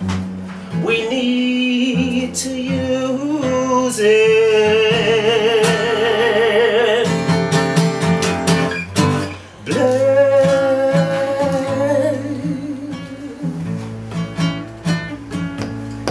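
A man singing long, wordless held notes with vibrato over a strummed acoustic guitar, with a short break about nine and a half seconds in.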